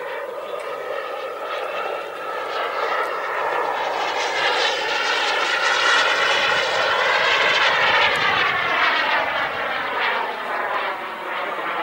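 Radio-controlled model jet flying past, a steady jet rush that grows louder to a peak a little past the middle and then fades.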